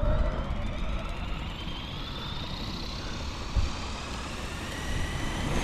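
Flywing Airwolf RC helicopter's electric motor and rotor spooling up on the ground, a whine that rises steadily in pitch as the rotor speed builds.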